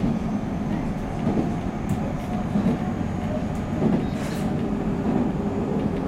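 Running noise of a JR 313-series electric train heard from inside: a steady low rumble of wheels on rail, with a single light click about two seconds in.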